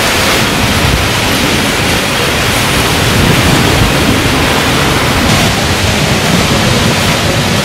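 Heavy rain pouring down onto a waterlogged street: a loud, steady hiss of downpour.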